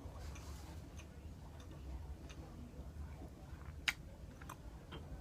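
A few small clicks and taps of tableware while eating soup, the sharpest about four seconds in, over a steady low room hum.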